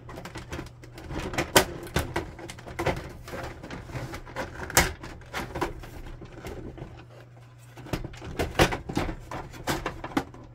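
Clicks, taps and knocks of the plastic housing of an HP ENVY 5055 printer being handled as its top cover is worked loose by hand, scattered irregularly, with a run of louder clicks a couple of seconds before the end.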